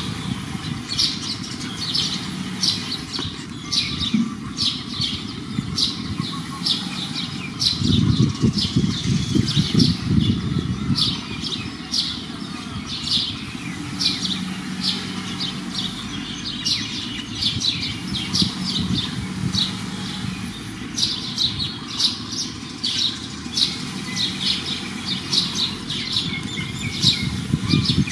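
Small birds chirping over and over, short high notes a few times a second, over a low outdoor rumble that swells for a few seconds near the middle.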